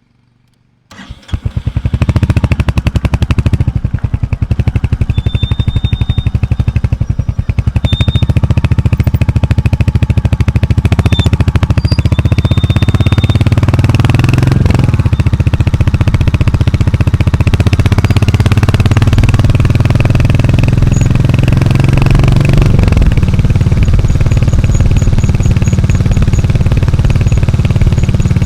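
Royal Enfield Hunter 350's single-cylinder engine starting about a second in and then idling with a steady, pulsing exhaust beat, with brief rises and falls in revs about halfway through and again near the end.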